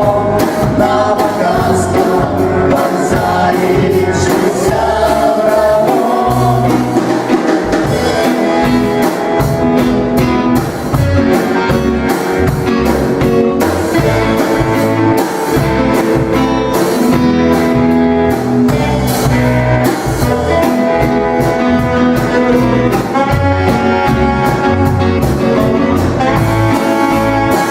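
A rock band playing live: the full band with a steady drum beat and sustained guitar or keyboard notes, in a section without words.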